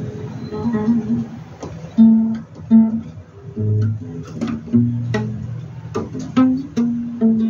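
Guitar music: a melody picked note by note, with a few longer low notes underneath.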